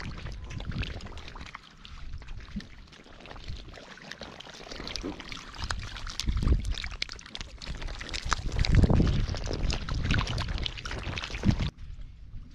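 A heap of live catfish writhing and flopping in a shallow muddy puddle: a steady crackle of wet slaps, splashes and squelching clicks, louder in places. The sound breaks off abruptly shortly before the end.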